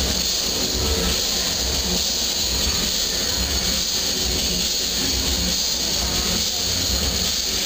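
Steady hiss with a low rumble underneath, at an even level with no distinct knocks or strikes.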